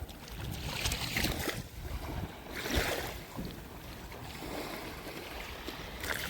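Sea waves washing in with a swelling hiss, under a low rumble of wind on the microphone.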